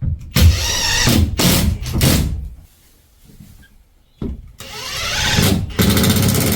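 Cordless drill driving screws into timber, the motor running in two long spells: one starting about half a second in with a wavering whine, and another starting about four seconds in that rises in pitch as it spins up.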